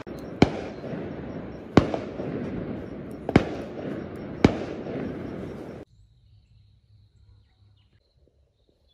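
Fireworks going off: four sharp bangs over about five seconds with a continuous crackling rumble between them, cutting off abruptly about six seconds in.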